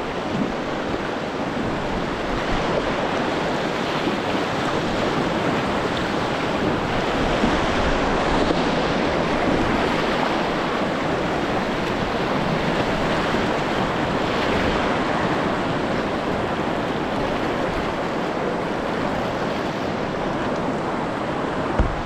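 River water rushing steadily over shallow rapids, heard from a kayak, with a brief knock near the end.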